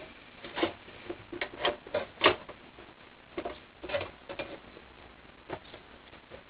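Irregular light clicks and taps of small metal parts being handled and set in place as a replacement heater core is fitted into a heater box.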